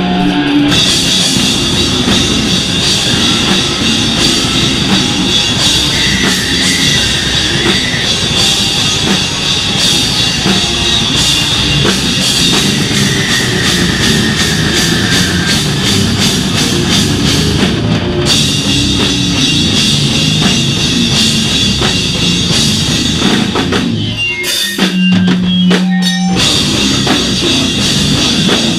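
Live slam/beatdown hardcore band playing loud, with the drum kit pounding under heavy amplified guitars. A few seconds before the end the music breaks into short stop-start hits, then the full band comes back in.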